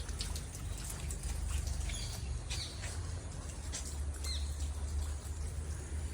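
Rain dripping and pattering in scattered drops, with a few short high animal calls about two and a half and four seconds in. A steady low rumble runs underneath.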